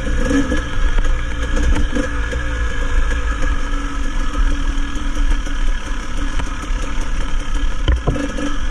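Dirt bike engine running steadily at trail pace, with heavy wind rumble on the microphone. There is one sharp knock near the end.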